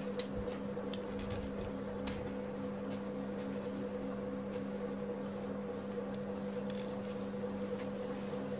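A steady electrical hum from an appliance in the room, with a few faint clicks as plastic keyboard parts are handled.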